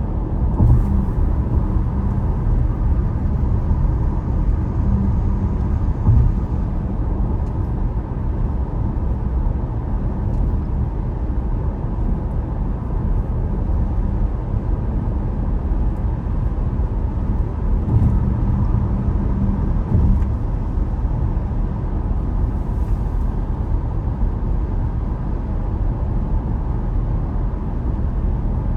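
Steady low road and engine noise of a vehicle cruising on a highway, heard from inside the cabin, with a few brief bumps from the road surface.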